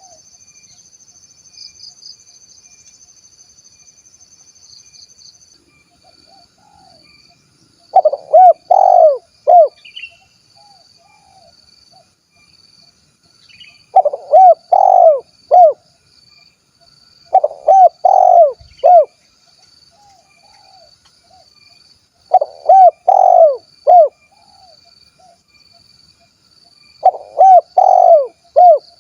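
Spotted dove (tekukur) cooing its 'kuk 1' song: five phrases, each a quick run of four or five low, rounded coos, spaced about four to six seconds apart. A faint steady high-pitched insect drone runs underneath.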